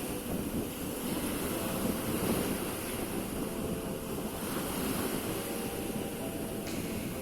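Sea surf washing onto the shore, a steady wash of waves, with wind buffeting the microphone.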